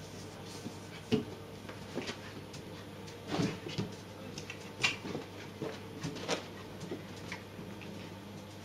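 A small dog playing with rubber balloons: irregular soft bumps, taps and rubbing noises as it noses and pushes them about, the sharpest tap about a second in.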